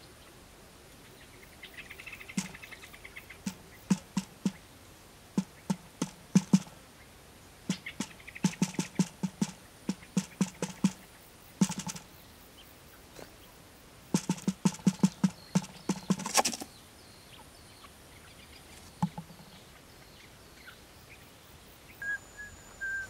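Quail pecking grain off a cardboard sheet, making runs of quick light taps several a second in bursts with pauses between them. A faint bird chirping comes twice early on.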